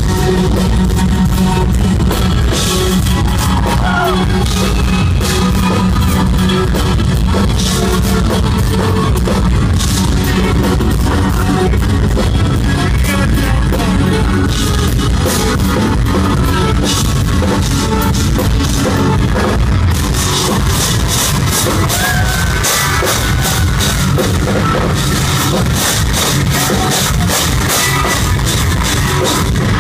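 Live instrumental progressive metal band playing loud distorted eight-string electric guitars over a drum kit, heard from the crowd. Fast cymbal hits grow denser about two-thirds of the way in.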